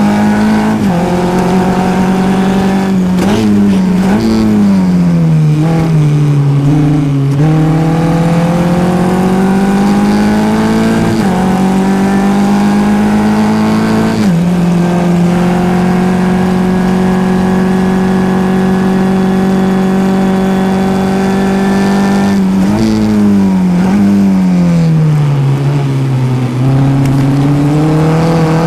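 Formula F race car's four-cylinder engine heard from the cockpit under racing load. Twice it brakes with quick throttle blips on the downshifts and sinks to low revs through a corner. Between these it climbs in pitch under acceleration, changes up once, and holds high revs down the straight.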